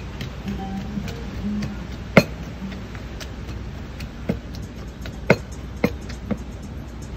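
Scattered sharp clinks and taps, about six of them spread unevenly over several seconds, over a steady low background hum.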